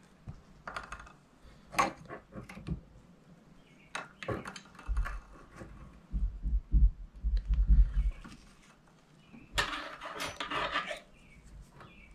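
Hands working at a fly-tying vise: small clicks, taps and rustles as chenille and thread are wrapped onto the hook, with several low bumps against the vise or table in the middle and a longer rustle near the end.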